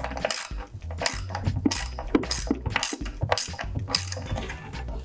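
Hand ratchet clicking in repeated strokes, roughly two a second, as it drives a screw into wood.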